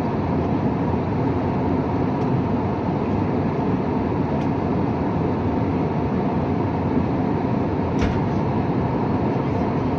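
Steady drone inside an Airbus A320neo cabin in flight: engine and rushing-air noise with a faint even tone. A brief click about eight seconds in.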